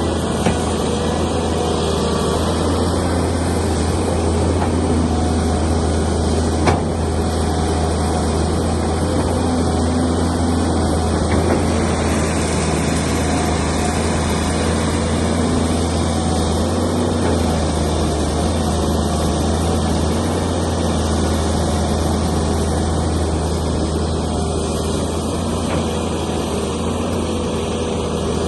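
Heavy machinery engine running steadily at an even speed with a deep low hum, with one short sharp click about seven seconds in.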